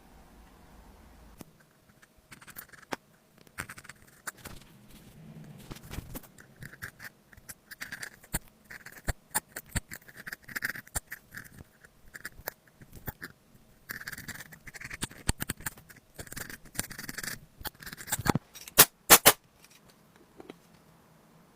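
Scraping and scratching at an iPhone's ring/silent switch as it is cleaned, with scattered light clicks. A quick run of four loud, sharp clicks comes near the end.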